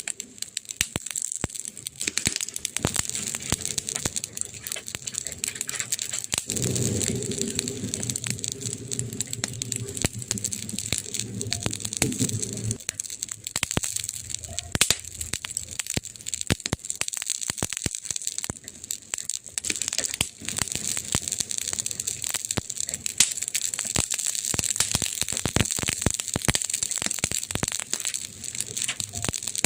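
Wood fire crackling in a fireplace: a steady stream of sharp pops and snaps over a soft hiss. Between about six and thirteen seconds in, a low hum joins in.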